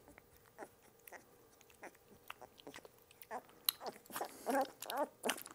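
Two-week-old Malinois puppy smacking and licking at an oral syringe of liquid dewormer with faint wet clicks. From about three seconds in it starts whimpering and squealing in protest, growing louder near the end.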